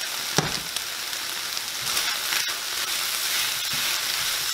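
Diced chicken breast frying in a pan, a steady loud sizzle. About half a second in there is one sharp clack, and near the end tongs stir the pieces in the pan.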